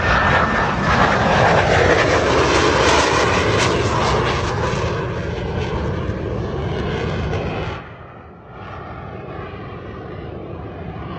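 Jet engines of four Blue Angels F/A-18 jets flying overhead in a diamond formation: a loud, steady roar whose tone sweeps slowly as they pass. About eight seconds in it drops suddenly to a quieter, more distant jet rumble.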